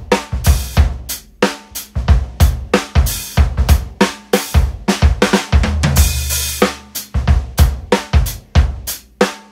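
A groove played on a 1967 Rogers Holiday drum kit: kick, snare, hi-hat and cymbals. The 20-inch bass drum has a small blanket inside, a half-muffled kick that still rings a little but is cut shorter than wide open. A crash and a low drum ring out together about six seconds in.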